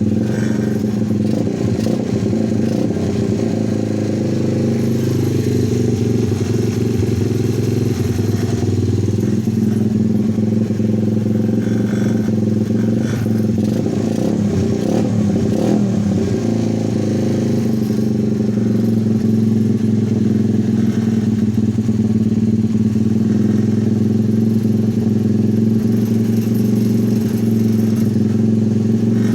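A 125cc pit bike's single-cylinder engine running steadily at idle, with a few seconds of unsteady running in the middle.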